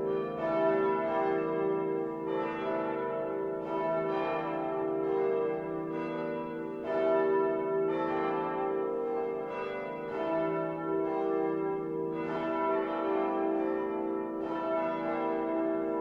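Full peal of the church bells of St. Andreas: several swinging bells striking in an overlapping, irregular sequence, about one to two strikes a second, each tone ringing on under the next.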